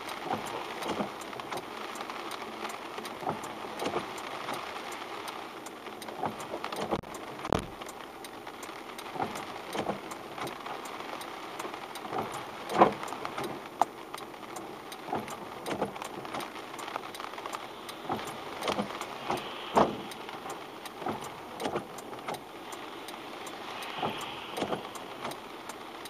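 Raindrops ticking irregularly on the car's windshield and roof over a steady hiss of rain, with a few louder knocks from heavier drops.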